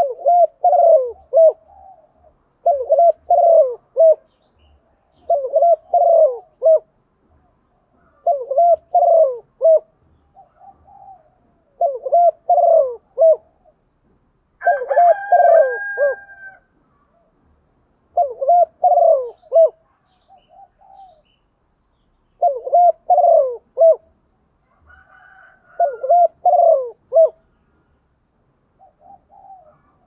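Female spotted dove cooing: a repeated phrase of three or four low coo notes, about nine times, one every three seconds or so. It is a female's call that draws and excites male spotted doves. Twice, about halfway and near the end, a higher, drawn-out call from another bird sounds over it.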